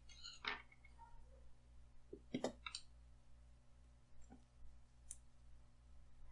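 Scattered light clicks and taps from the small plastic and metal parts of a disassembled CD/DVD drive's laser mechanism being handled, with a small screwdriver working at its screws. About half a dozen clicks, several close together about two and a half seconds in, over a low steady hum.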